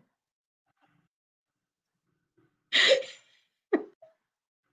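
Two short, breathy bursts of a person's laughter about three seconds in, after near silence.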